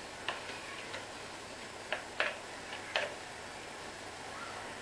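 Four light, sharp clicks of kitchen utensils tapping on cookware, scattered over about three seconds, against a faint steady background hiss.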